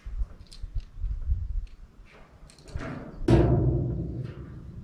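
Heavy knocks and thuds: a few lighter knocks about a second in, then a deep booming thud a little past three seconds in that rings on for more than a second as it fades.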